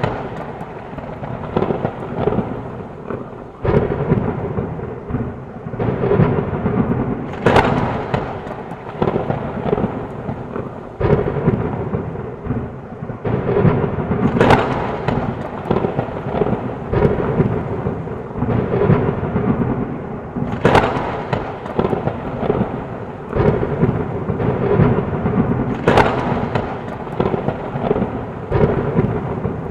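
Heavy rain falling with low rolling thunder throughout, broken by four sharp thunderclaps spaced several seconds apart.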